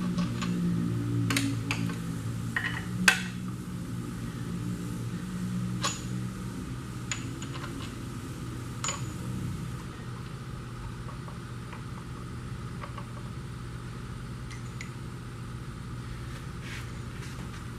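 Scattered metal clinks and taps of hand tools and engine parts being handled during teardown of a flathead V8's crankshaft main bearings, over a steady low hum. The sharpest clink comes about 3 seconds in.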